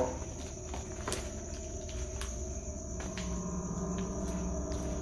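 Insects chirping steadily in a continuous high-pitched trill, with a sharp click about a second in and a few fainter ticks.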